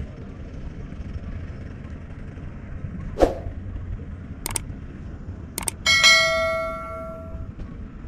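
A few sharp knocks, then a metallic clang about six seconds in that rings on in several pitches for about a second and a half, like struck metal, over a steady low rumble.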